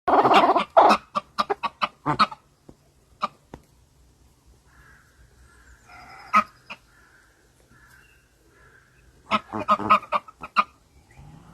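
Chickens clucking and squawking in loud bursts through the first two seconds and again near the end, with softer calls in between.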